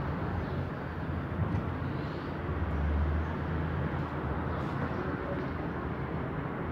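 Steady low rumble and hiss of outdoor background noise, swelling briefly about three seconds in.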